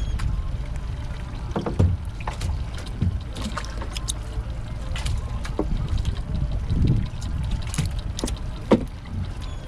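Water lapping at a small boat's hull over a steady low rumble, with scattered knocks and clicks from gear being handled aboard.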